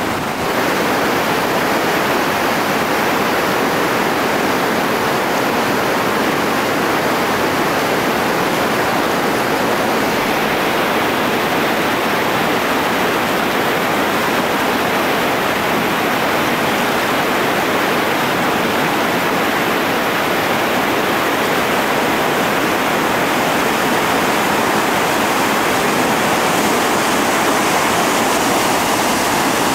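Steady rush of the Bull Sluice whitewater rapid on the Chattooga River, water pouring over and around big boulders.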